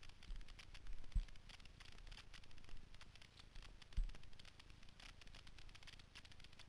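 Faint irregular crackling and rustling from a helmet-mounted camera's microphone being rubbed and jostled, with two dull thumps, one about a second in and one about four seconds in. No engine is heard.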